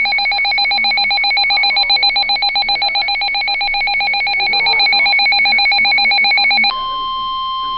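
Emergency Alert System signal on NOAA Weather Radio: a rapid, chattering burst of electronic data tones (the SAME header coding of the coming warning). About seven seconds in it switches to a steady single-pitch alarm tone, the Weather Radio warning tone that precedes a warning.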